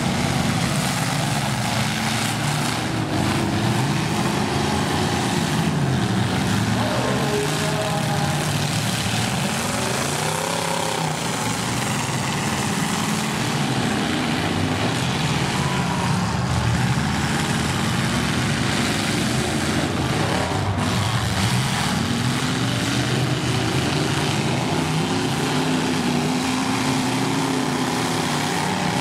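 Several demolition derby cars' engines running together and revving up and down, with a few sharp bangs of cars smashing into one another.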